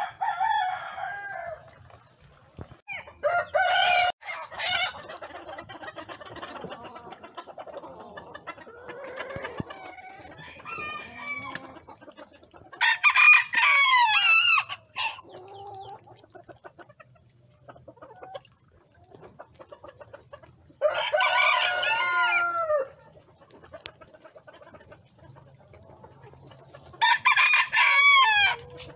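Bantam roosters crowing over and over, each crow about two seconds long and dropping in pitch at the end, with quieter clucking between crows.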